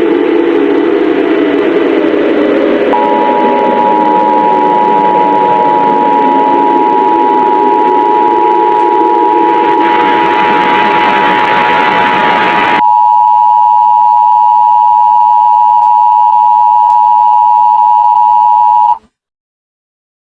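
Emergency Alert System two-tone attention signal: a steady, harsh pair of close pitches. It starts about 3 s in and holds until it cuts off abruptly shortly before the end. Under its first part a loud rush of noise with falling, siren-like tones runs on and stops suddenly about two-thirds of the way through.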